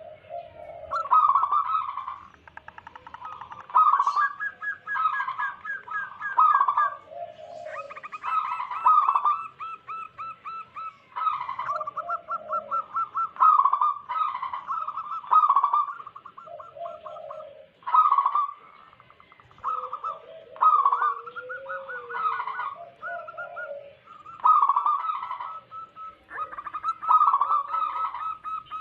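Zebra doves (perkutut) cooing over and over: rolling, trilled coos with short staccato notes, in phrases that come every second or two and overlap one another.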